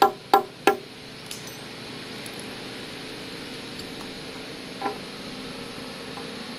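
Hammer tapping on a Kota limestone slab to split it by hand: three quick, ringing strikes about a third of a second apart, then the tapping stops about a second in, leaving a steady hiss with one light knock near the five-second mark.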